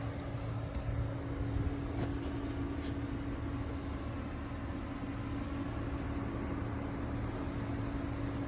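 Outdoor air-conditioning condenser units running together: a steady machine hum with one constant low tone under the rush of the fans.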